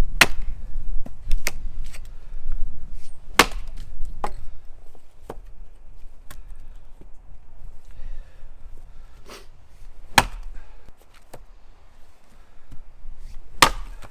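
Axe strikes chopping into the wood of small trees: sharp single blows at an uneven pace, about ten in all, the hardest a few seconds apart with lighter strokes between.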